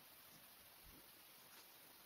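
Near silence: faint room hiss, with one faint low thump just under a second in.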